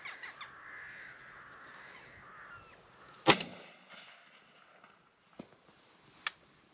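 Crows cawing, then a little over three seconds in a single loud 12-bore shotgun shot with a short echo. Two faint sharp clicks follow near the end.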